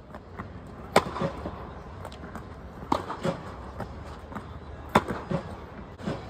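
Tennis balls being struck by rackets on a hard indoor court: three sharp pops about two seconds apart, each followed by lighter knocks of the ball bouncing.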